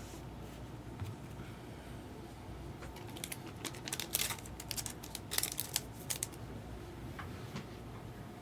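Trading cards being handled and sorted by hand: light clicks, slides and rustles of card stock, bunched together a few seconds in, over a low steady room hum.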